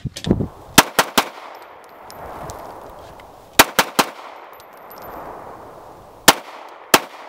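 Glock 19X 9mm pistol fired in quick strings: three rapid shots about a second in, three more about halfway through, then two near the end.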